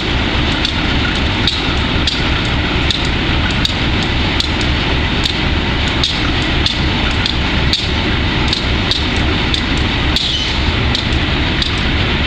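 GE B30-7 locomotive's V12 diesel engine running loud and steady, with a sharp knock recurring about once a second. The locomotive has bad fuel injectors.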